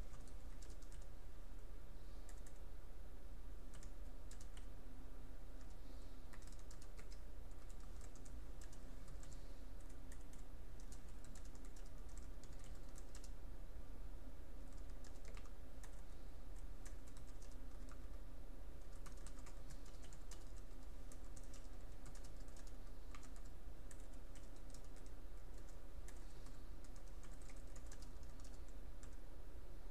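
Computer keyboard being typed on: faint, irregular high clicks over a steady low hum.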